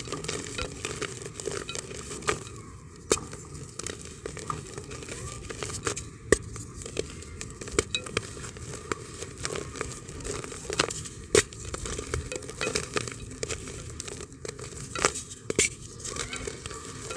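A hard block of multani mitti (Fuller's earth) being crumbled by hand into a clay pot: a dense run of small crunches and crackles, with a few louder sharp snaps as pieces break off.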